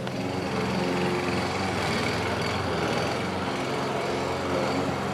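Petrol lawnmower engine running steadily, its drone holding a fairly even pitch.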